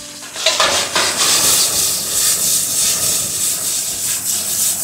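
Beef sizzling in a steel wok over a strong gas burner. About half a second in, the sizzle jumps to a loud hiss with scraping strokes as the wok is tossed, and flames flare up out of the pan.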